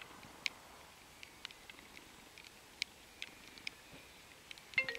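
Faint open-air background with scattered light ticks, then near the end a mobile phone ringtone starts playing a bright stepped melody of chiming notes.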